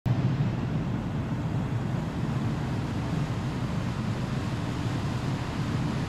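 Boat engine running steadily under the rush of the churning wake, with wind buffeting the microphone.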